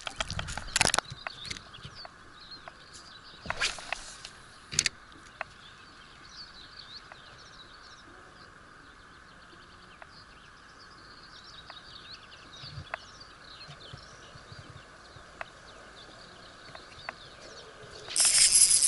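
Tsurinoya FS 2000 spinning reel cranked on the retrieve, a loud steady whirring ratchet-like sound that starts near the end. Before it there are a few sharp clicks and knocks from tackle handling near the start and around four seconds in, then quiet outdoor background with birds twittering faintly.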